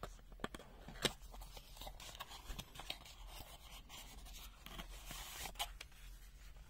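Faint rustling and scraping of a cardboard multimeter box and a paper instruction leaflet being handled and unfolded, with a scatter of small clicks and taps.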